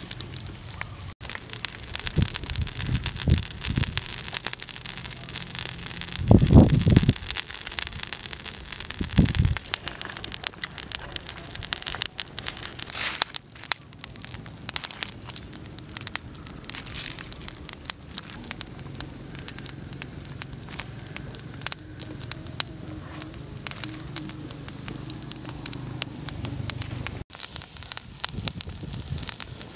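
Crackling and clicking of a small wood fire, with snails roasting in their shells on the embers by the end. There are a few low thumps of handling about six and nine seconds in.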